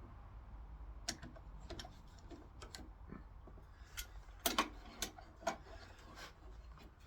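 Scattered light clicks and knocks of hardware and hand tools being handled during assembly, with a few sharper taps about four and a half to five and a half seconds in.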